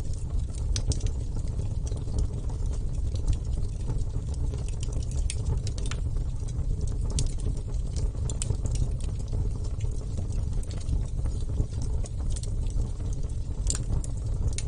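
Wood campfire burning: a steady low rumble from the flames with irregular sharp crackles and pops from the burning wood, several a second.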